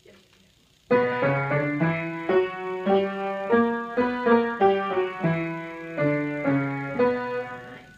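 Piano playing a short melodic passage of repeated broken chords, starting about a second in and fading away near the end.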